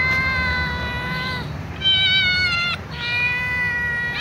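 Young cats meowing loudly to be fed: three long, drawn-out meows one after another, the middle one higher-pitched.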